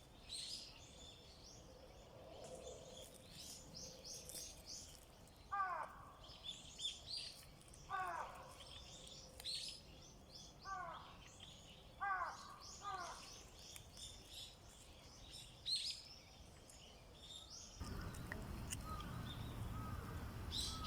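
Small birds chirping and calling, with short high notes throughout and a few lower, falling calls repeated five times in the middle. A steady low rumble comes in near the end.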